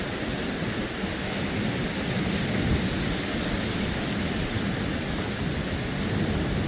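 Ocean surf and wind making a steady, even rush of noise.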